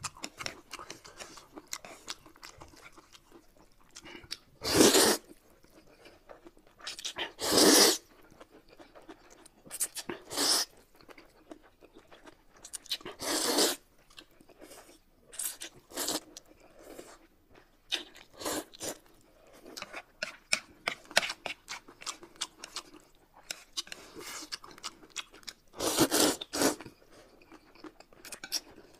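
Noodles being slurped and chewed, with a handful of loud, short slurps spread through and small wet chewing clicks between them.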